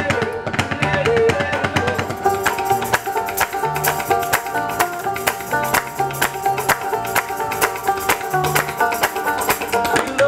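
Acoustic country band playing an instrumental break: two banjos picking over an upright bass, with an even clicking percussion beat.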